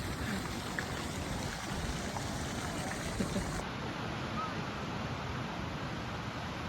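Steady rush of ocean surf washing on the beach, with a few faint, brief voices behind it.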